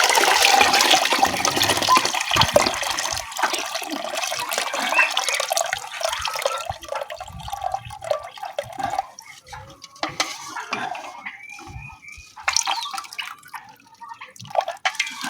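Cooled cinnamon-leaf brew being poured through a sieve. A heavy, splashing pour for the first few seconds thins to a trickle and drips, with a few light knocks of the containers.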